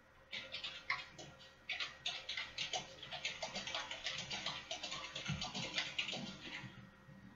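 Rapid typing on a computer keyboard: a quick, uneven run of key clicks lasting about six seconds, with one low thump about five seconds in.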